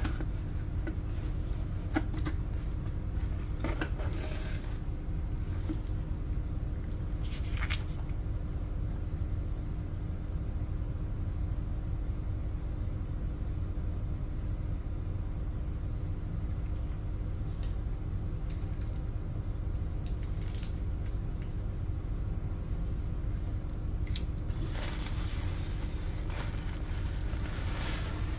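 Hands handling a cardboard shipping box and the plastic bubble wrap inside it: a few sharp clicks and taps in the first few seconds, scattered short rustles, and a longer stretch of crinkling rustle near the end as the wrapped product box is lifted. A steady low hum lies underneath.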